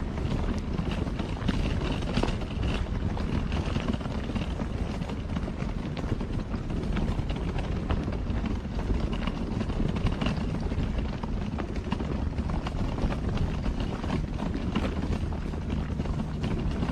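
Footsteps crunching on a packed dirt-and-gravel trail over a steady low rumble of wind and movement on a walking camera's microphone.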